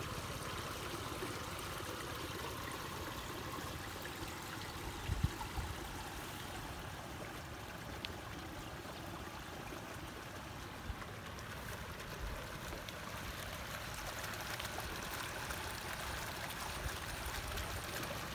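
Muddy water running steadily through a freshly unclogged culvert and down a shallow ditch, the drainage flowing again. A couple of low thumps sound about five seconds in.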